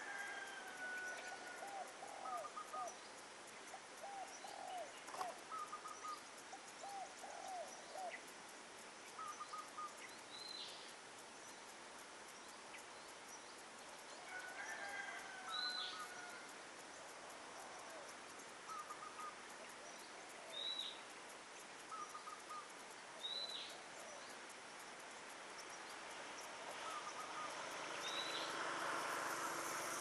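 Spotted doves cooing in repeated low phrases through the first eight seconds or so, with other birds' short high calls and several sharp downward whistles throughout. A broad rush of noise swells near the end.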